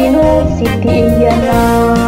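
Oromo gospel song: a sung vocal melody over instrumental backing.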